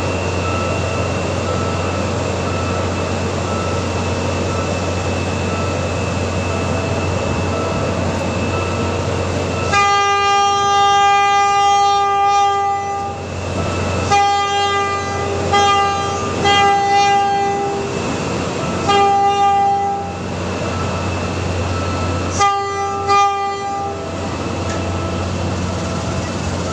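Diesel train engines running with a steady low drone. About ten seconds in, a train horn sounds one long blast, followed by several shorter blasts and a quick run of short toots near the end.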